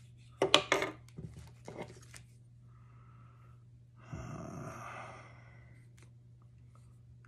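A handful of sharp metallic clicks and knocks as a small pistol is handled, the loudest about half a second in. About four seconds in comes a softer breathy sound lasting just over a second.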